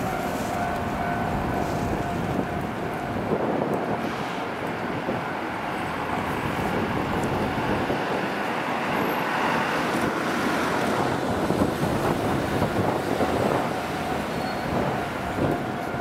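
Steady street-and-railway noise with wind buffeting the microphone, as a Keisei Kanamachi Line train approaches slowly along the track.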